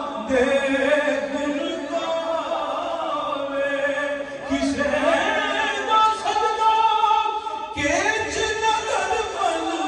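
Singing of a Punjabi naat, a devotional song, with long held notes that bend and glide in pitch.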